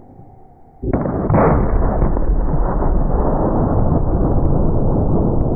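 A 1-bore punt gun firing a heavy load of number 8 birdshot, heard slowed down: a sudden boom about a second in, then a long, deep roar that does not die away.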